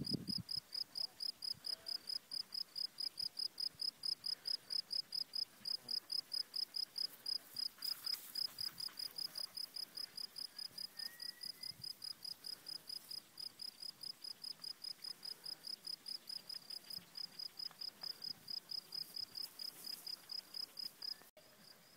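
A cricket chirping steadily, a high, even pulse repeated about four to five times a second. Its level drops suddenly near the end.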